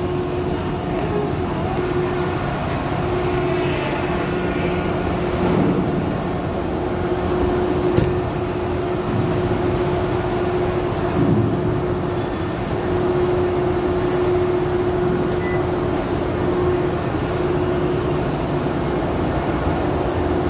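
Steady machinery drone on the enclosed car deck of a ro-ro passenger ferry, with a constant hum held throughout. A single sharp knock comes about eight seconds in.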